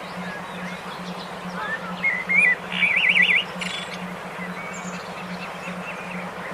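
Several birds chirping and whistling, with a loud rapid warbling trill about three seconds in. Under them runs an evenly pulsing low hum.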